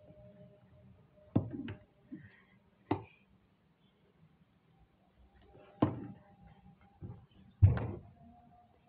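A Rubik's cube handled on a tabletop: about six sharp knocks and clacks as it is turned in the hands and set down on the desk, the loudest near the end.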